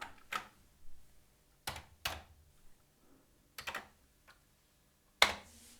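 Keystrokes on a Commodore 64 keyboard: a few separate key clicks spaced out, with a louder one about five seconds in.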